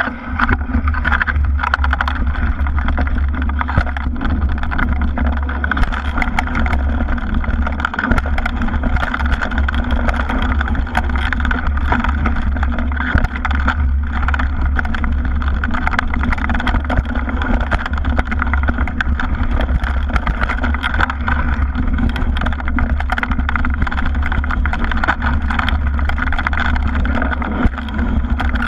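Mountain bike ridden over a dirt forest trail, heard through a GoPro mounted on the bike: a steady deep rumble from the tyres and frame, with many small knocks and rattles from the bike over the bumps.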